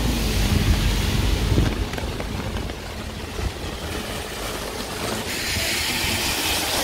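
Heavy rain on a city street, with the low engine hum of a passing road vehicle fading out over the first couple of seconds. After that comes a steady rain hiss that grows louder and brighter about five seconds in.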